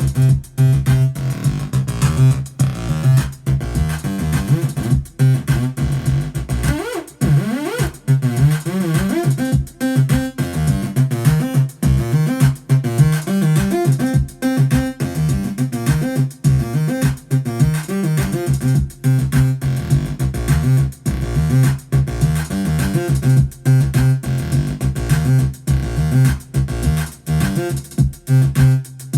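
An electronic jam: a drum-machine beat under a repeating acid-style synthesizer bass sequence. Around seven seconds in, the synth sweeps upward in pitch.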